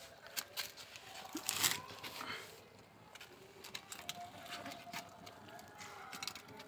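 Kittens eating from a steel bowl and a plastic tray: irregular clicks and crunches of chewing and licking, with a louder noisy scuffle about a second and a half in.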